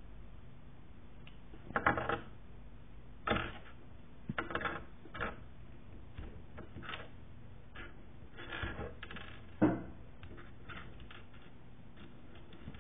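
Small plastic LEGO pieces clicking and clattering in a series of short, irregular rattles, the loudest about two, three and a half and nine and a half seconds in.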